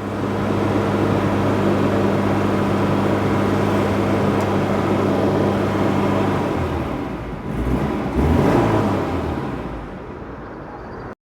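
Citroen GSA's air-cooled flat-four engine held at raised revs with its engine cooling fan whirring, being run to blast water out of the wet engine bay. The steady note breaks up and eases off after about six and a half seconds.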